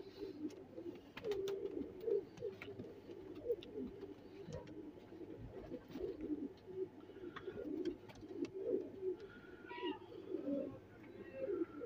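Domestic pigeons cooing: low, warbling coos that run on almost without a break, with a few faint clicks and a brief higher call near the end.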